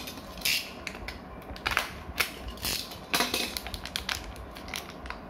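Small plastic Beyblade parts and their plastic packaging being handled: irregular sharp plastic clicks mixed with short rustles.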